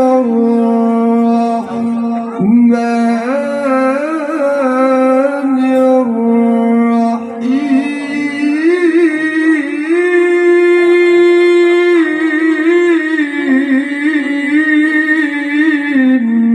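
A male qari reciting the Quran through a microphone in the melodic tilawah style, holding long ornamented notes with winding turns. The voice climbs to a long high held note about halfway through, then winds back down.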